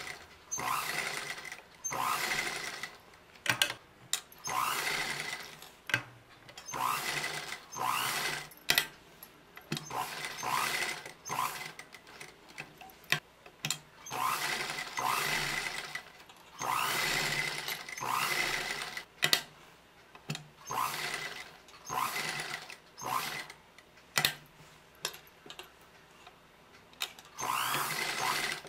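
Sewing machine stitching a curved neckline seam in short stop-start runs of about a second each, the motor's pitch rising as each run starts. Sharp clicks fall in some of the pauses between runs.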